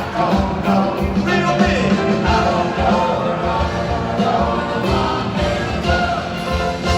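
Live band playing with singing and a steady beat.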